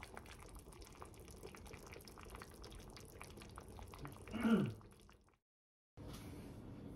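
A pot of yukgaejang simmering on the stove, small bubbles ticking and popping faintly. About four and a half seconds in, a short falling voice-like sound; after a brief dropout a steady low hum follows.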